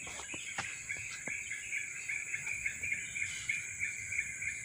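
Insects buzzing in a steady high hiss, with a chirp repeating several times a second beneath it. A few faint ticks in the first second or so.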